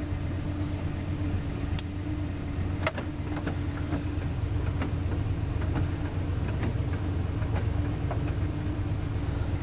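Truck engine running steadily with a low hum and a steady tone, with scattered light ticks throughout.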